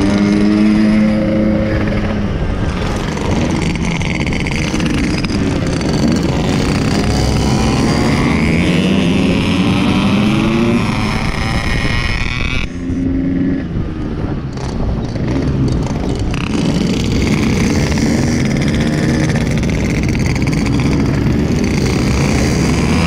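Yamaha RX-King 135 cc two-stroke single-cylinder motorcycle engine on the move. Its pitch rises and falls again and again as it revs and changes gear. Other motorcycles are riding close by.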